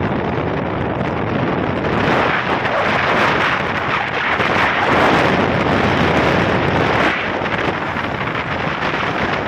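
Wind rushing over the phone's microphone during a motorbike ride, loudest between about two and seven seconds in, with the bike's engine and road noise underneath.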